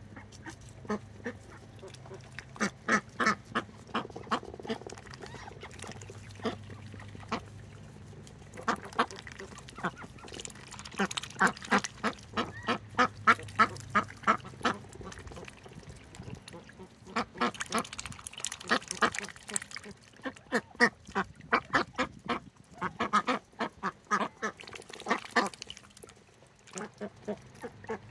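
Domestic ducks quacking and dabbling their bills in a tub of drinking water, in runs of quick short sounds that come and go.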